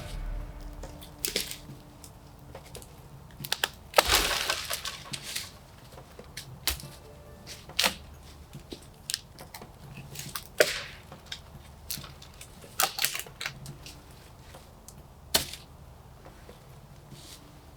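Dry sticks and branches snapping and cracking by hand, about a dozen sharp cracks at irregular intervals, with a longer crunching snap of brush about four seconds in.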